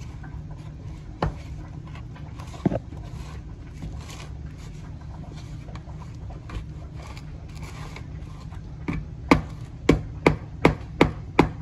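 Dumpling dough being worked by hand in a plastic bowl: soft scraping and rubbing of flour and dough against the bowl, then near the end a quick run of sharp knocks, two or three a second, as the dough is slapped and pressed. A steady low hum runs underneath.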